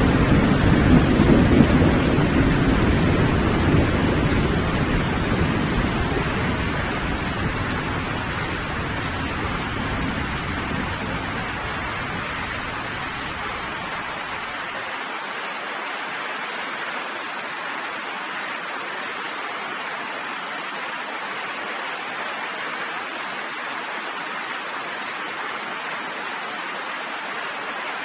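Steady rain falling, with a deep rolling thunder rumble at the start that slowly fades and has died away by about halfway, leaving only the rain.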